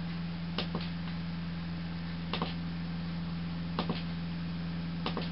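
A few short clicks, mostly in pairs about a second or more apart, from the push-button switch on a battery-powered DC ceiling puck light being pressed, over a steady low hum.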